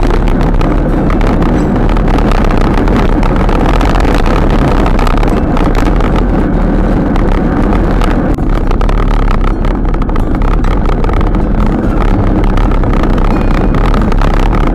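Loud, steady wind rush over the microphone of a camera on a moving bicycle, with a constant low rumble from riding along the road.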